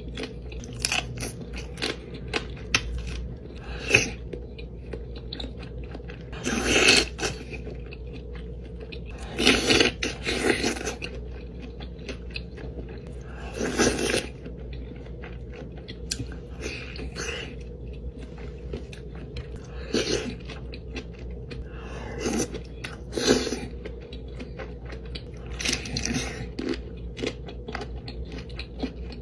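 Close-miked mukbang eating of a seafood boil: bites and chewing, with sharp clicks and several louder crunchy bursts every few seconds, over a steady low hum.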